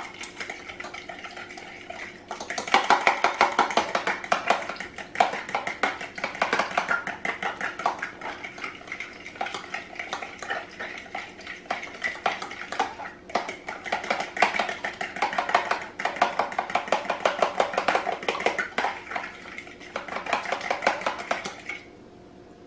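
Metal fork beating raw eggs in a plastic container, a rapid steady clatter of tines against the sides and bottom that stops suddenly near the end.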